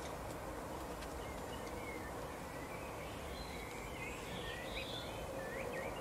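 Steady outdoor background noise with faint, quick high twittering and chirping of small songbirds, coming more often in the second half. A few faint light clicks in the first second.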